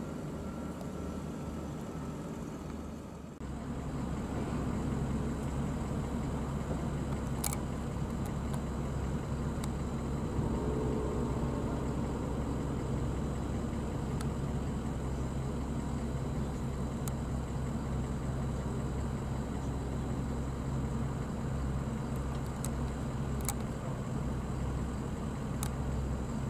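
Steady low engine hum of a vehicle idling, changing briefly about three seconds in and then running on evenly, with a few sharp clicks.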